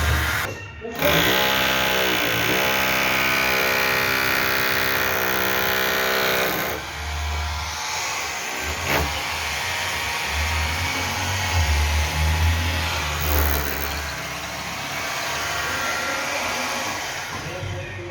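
A small electric motor, like a power tool's, starts about a second in, rises briefly in pitch and then runs at a steady pitch until it cuts out after about six seconds. A rougher mechanical noise with low rumbling follows.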